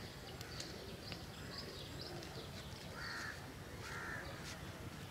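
A crow cawing twice, about three and four seconds in, over small birds chirping and a steady low rumble.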